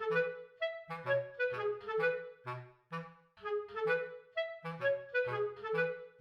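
Light, bouncy background music: a clarinet-like woodwind playing short detached notes over a plucked bass, with a brief pause about three seconds in.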